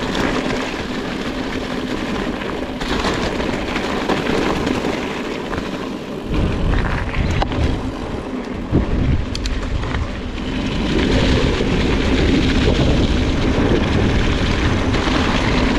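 Electric mountain bike rolling down a rough washboard gravel forest road, with steady tyre and rattle noise. Wind rumbles on the microphone, heavier from about six seconds in.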